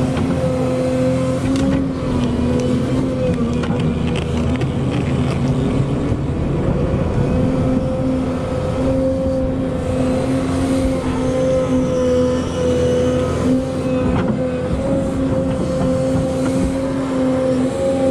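Volvo EC220E excavator's diesel engine running steadily under work. It gives a continuous hum with a tone that wavers slightly in pitch as the machine works.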